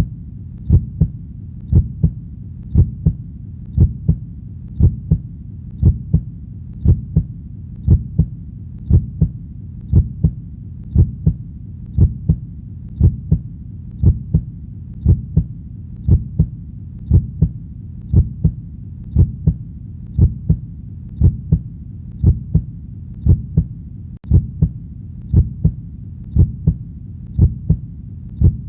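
Human heartbeat: steady double 'lub-dub' beats, about one pair a second, low and thudding over a continuous low hum.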